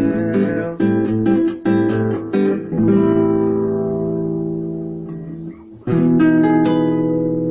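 Acoustic guitar strumming the closing chords of a samba song. The strumming stops about three seconds in on a chord left ringing and fading, then a final chord is struck about six seconds in and rings out.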